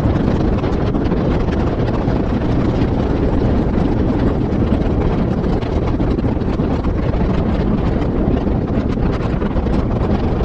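Cadillac ATS on new Lexani LXUHP-207 tyres driving at speed: steady tyre and road noise with wind rushing over the outside-mounted camera's microphone.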